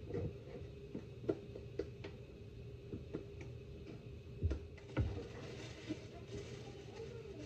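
Scattered light clicks and knocks of hands at work making corn tortillas, with two heavier thumps about four and a half and five seconds in, over a steady low hum.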